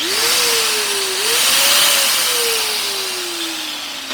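Metabo angle grinder switched on after a power cord replacement, the motor running and working again: a whine that rises quickly at start-up, dips briefly about a second in and climbs back, then slides steadily lower in pitch as it winds down.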